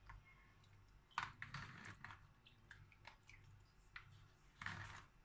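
Soft wet squishing of a spoon and fingers working garlic-and-vinegar marinade into a butterflied milkfish in a plastic tray, with a few light spoon clicks, the sharpest about a second in, and a brief wet scrape near the end. A faint steady hum underneath.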